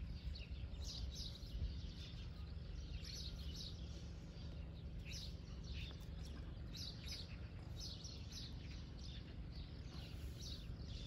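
Small birds chirping outdoors, short high chirps following one another several times a second, over a low steady rumble.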